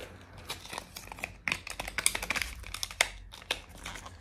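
Packaging of a new liquid blush being opened and handled: crinkling and tearing with irregular small crackles and sharp clicks, busiest in the middle.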